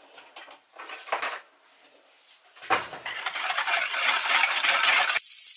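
Spoon stirring jelly powder and sugar into water in a plastic mixing bowl: a few light clinks, a short pause, then about two and a half seconds of steady brisk scraping that stops abruptly near the end, leaving a thin hiss.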